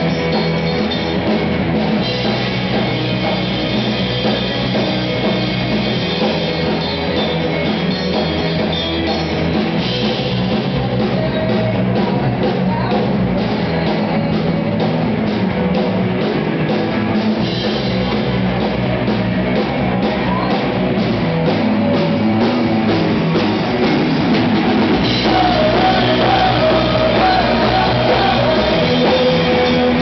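Live rock band playing loudly: drum kit with cymbals, electric guitar and a woman singing, her voice clearest in the last few seconds. The drum and cymbal pattern shifts a few times as the song moves between sections.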